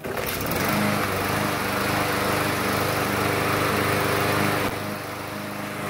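A walk-behind lawn mower's small engine catches on the pull-start and runs steadily, showing that the newly replaced carburetor works. It is briefly a little quieter near the end.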